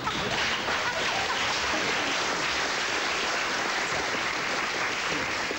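Studio audience applauding steadily, with some laughter near the start.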